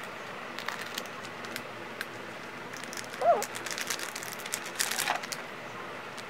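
Scattered light clicks and taps, with a brief squeak about three seconds in and a denser run of clicks around five seconds in.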